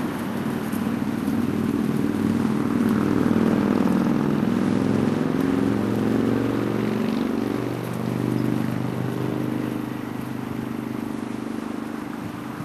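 An engine running with a steady droning hum whose pitch wavers, loudest a few seconds in and easing off toward the end.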